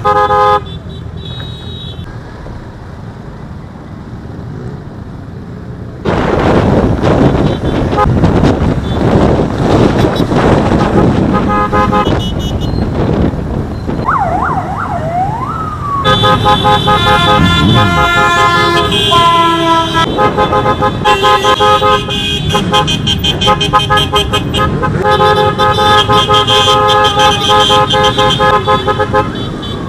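A motorcycle parade riding in traffic, with engines running. From about halfway through, vehicle horns honk again and again in long, overlapping blasts. Just before the horns start there is a brief wavering wail.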